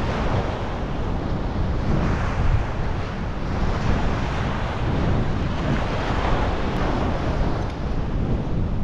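Strong wind rumbling on the microphone over the wash of waves breaking on a beach, the surf hiss swelling and easing.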